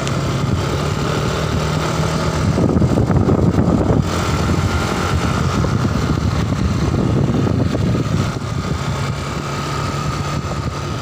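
Yamaha Aerox motor scooter's engine running steadily as it is ridden, with road and wind noise.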